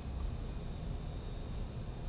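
Steady cockpit noise of a Boeing 737-200 on final approach, configured with gear down and flaps 30: airflow over the airframe and its JT8D turbofans, mostly low-pitched, with a faint high whine above it.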